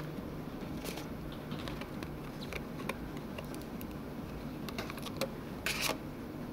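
Light clicks and crinkles of thin clear plastic packaging being handled as a nano USB receiver is pulled from its blister tray, with a short louder crinkle near the end, over a steady low hum.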